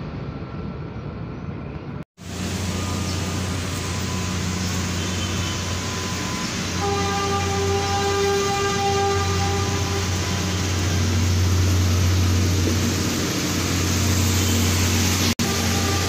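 Standing PNR diesel train's engine running with a steady low drone beside the platform. A steady pitched tone sounds over it for about three seconds in the middle.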